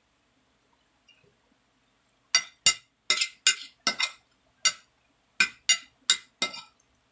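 Metal spoon clinking against a ceramic plate while scooping lumpia filling: about a dozen sharp clinks over some four seconds, starting about two seconds in.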